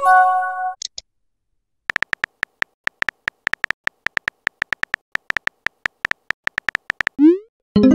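Texting-app sound effects: a short message chime, then a run of rapid keyboard-tap clicks for about five seconds as a message is typed. A quick rising swoop and another chime come near the end as the message is sent.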